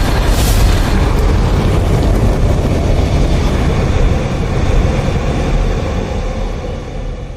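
A loud, dense rumble with heavy bass, which fades out near the end.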